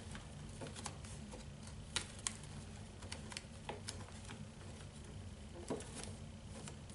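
Handmade greeting cards being slid into and leafed through in a tightly packed card storage box: scattered light paper taps and rustles, a few sharper ones, over a faint steady hum.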